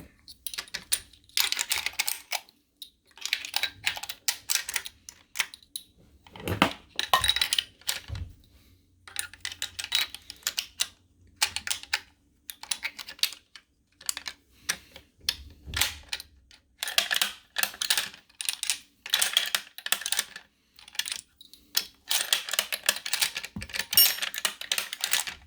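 Bolt-action rifle being worked open and shut as handloaded .30-06 cartridges are fed from the magazine into the chamber: repeated clusters of sharp metallic clicks, clacks and rattles with short pauses between, checking that each round feeds and chambers.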